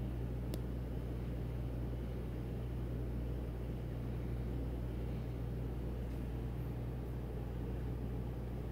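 Steady low mechanical hum with a soft rushing noise, the room tone of a lab with equipment running; one faint click about half a second in.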